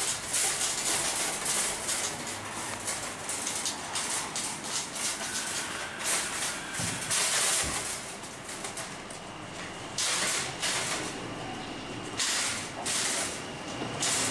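Wire shopping cart rattling and clattering as it is pushed along on its wheels.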